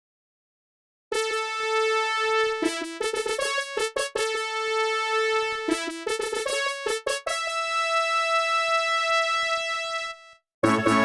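Panasonic X300 mobile phone ringtone: a synthesized melody of quick notes that starts about a second in and ends on one long held note. After a brief silence the next ringtone starts just before the end.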